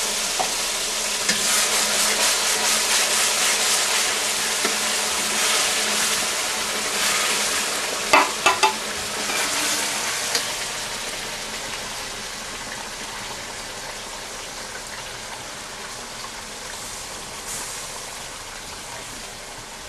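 Garlic paste sizzling as it fries in hot oil in a metal wok, with a metal spatula stirring and scraping the pan. Three sharp clanks of the spatula on the wok come about eight seconds in. The sizzle dies down steadily through the second half.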